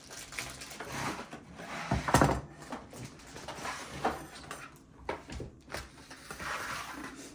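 Kitchen handling sounds: a few knocks and clatters of utensils and things being set down, the loudest about two seconds in.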